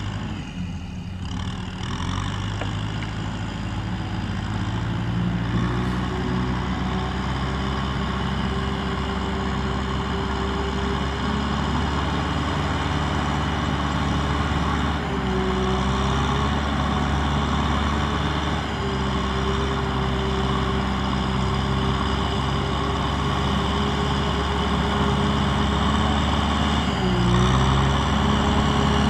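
Kubota M6040SU tractor's four-cylinder diesel engine running as the loaded tractor drives closer, growing gradually louder. The engine pitch dips briefly about halfway through and again near the end.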